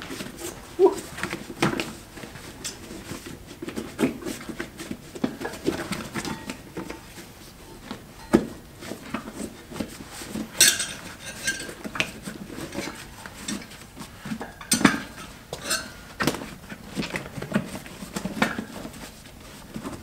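A powder-dusted double inner tube being worked by hand into a dirt bike trials tire on its wheel: rubber rubbing and scraping against rubber, with scattered knocks and clinks from the wheel and rim as it is handled.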